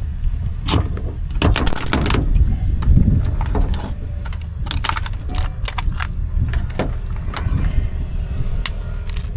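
Mud crabs being cut up and their shells cracked and prised apart by hand: a run of sharp cracks and clicks, thickest about one and a half to two seconds in and again around five seconds in, over a steady low rumble.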